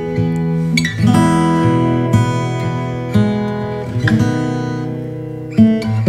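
Background music: strummed acoustic guitar, with a new chord struck about once a second.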